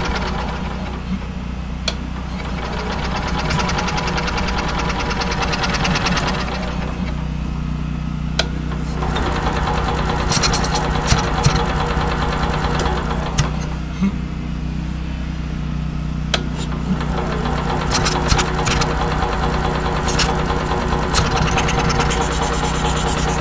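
Small generator engine running at a steady speed, with scattered sharp clicks and ticks over it, more of them in the second half.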